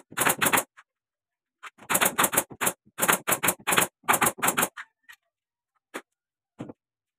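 Nail gun firing nails into wooden ceiling boards in quick runs of several sharp shots, then a few fainter single clicks near the end.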